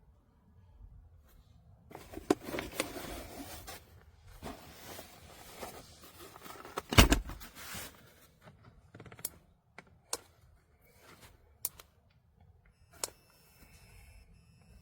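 Handling noises: scattered clicks, rustles and knocks of hard objects being moved and set down, with one louder thump about seven seconds in.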